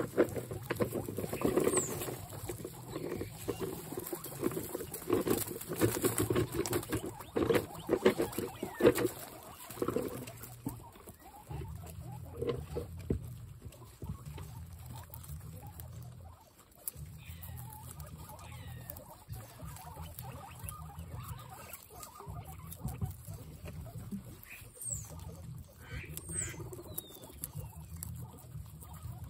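Several guinea pigs chewing and crunching vegetables in hay. The munching is dense and loud for about the first ten seconds, then quieter. A few short, high squeaks come near the start and twice near the end.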